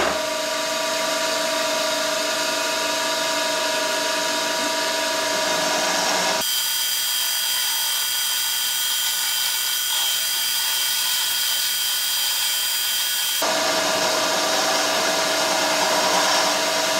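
Milling machine spindle running a Wohlhaupter UPA 1 boring head, its boring bar taking a light 0.1 mm boring cut: a steady machine hum with a whine. About six seconds in the tone switches sharply to a higher, thinner whine, and about thirteen seconds in it switches back.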